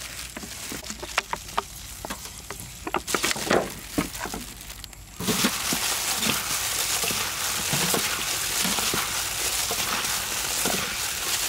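Gloved hands tossing and squeezing raw bean sprouts and chopped red bell pepper in a steel bowl, with the plastic gloves crinkling. The first seconds hold scattered rustles and clicks; about five seconds in the mixing turns into a steady, dense wet crackling.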